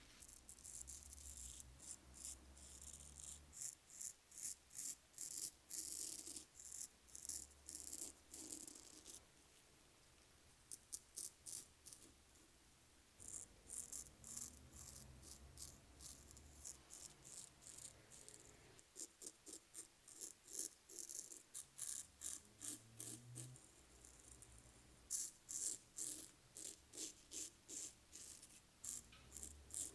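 Straight razor scraping through lathered beard stubble in short, quick strokes, about two a second, in runs with a brief pause about a third of the way through. Each stroke is a faint, crisp rasp.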